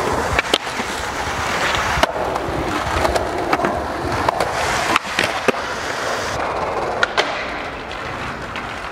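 Skateboard wheels rolling on pavement, with a series of sharp clacks of the board striking the ground.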